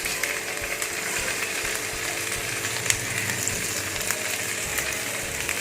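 Onion, green chillies and boiled potato pieces frying in hot oil in a pan, a steady sizzle with a few light clicks and one sharper click about three seconds in.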